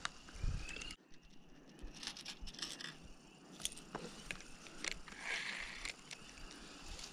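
A baitcasting reel and rod being cast and cranked, heard as faint scattered clicks and ticks from the reel and from handling.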